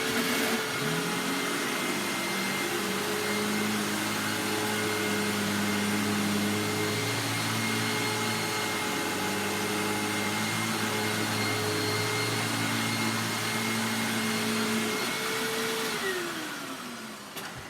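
Hoover WindTunnel Self-Propelled upright vacuum cleaner running steadily over carpet, sucking up embedded sawdust. It is switched off about sixteen seconds in, and the motor winds down with a falling whine.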